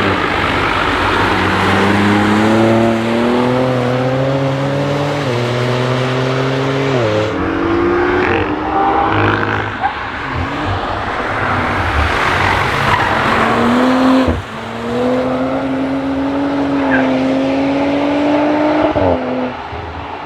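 Car engine accelerating hard and upshifting several times; each time its pitch climbs slowly, then drops sharply at the shift. Under it runs a steady hiss of tyres and spray on a wet track.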